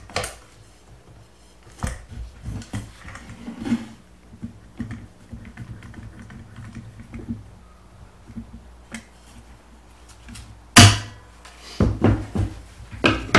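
Scattered clicks and knocks of pine 2x4 boards and a metal pocket-hole jig being handled and clamped down with locking pliers, with one sharp, loud snap late on followed by a few knocks.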